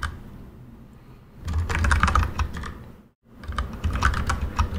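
Typing on a computer keyboard: quick runs of key clicks that start about a second and a half in. The clicks break off for a moment of dead silence a little past the middle.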